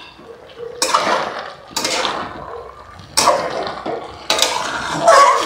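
Metal spatula stirring and scraping a watery Malabar spinach and potato curry in a metal kadai, in about four separate strokes with a wet, liquid sound.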